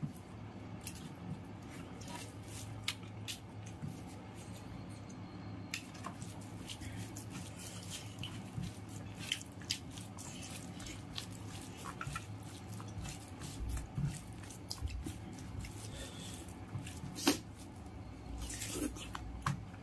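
Close-up eating sounds of rice and curry eaten by hand: scattered wet mouth clicks and smacks of chewing and of fingers working the rice, over a steady low hum. The loudest is a sharp wet click a few seconds before the end, as a handful goes into the mouth.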